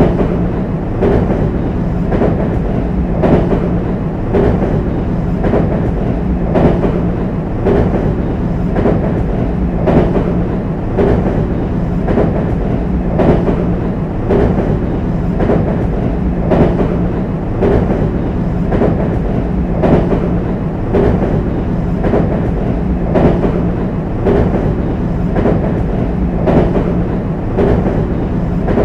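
JR West 225 series electric train running over the jointed rails of a railway bridge: a steady rolling rumble and hum, with the wheels clicking over the rail joints in a regular clickety-clack about once a second.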